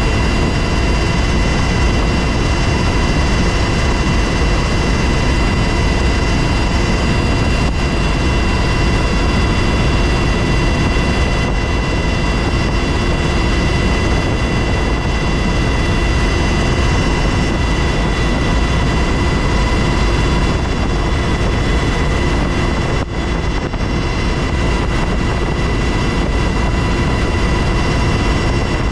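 UH-60 Black Hawk helicopter in cruising flight, heard inside the cabin: its twin turboshaft engines and rotor make a loud, steady din with a steady high-pitched whine running through it.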